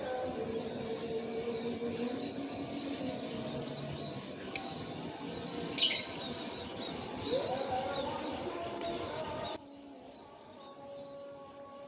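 A bird chirping again and again, short high chirps about one or two a second, over steady outdoor background noise; a sharp click about six seconds in.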